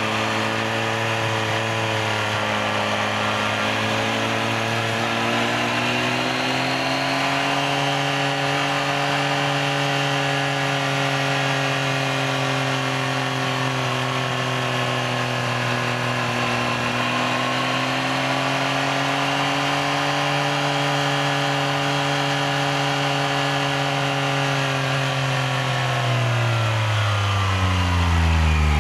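Yamaha XSR900's 890 cc inline-three engine running at steady, moderate revs while riding, its pitch drifting gently up and down, then dropping steadily near the end as the revs come down.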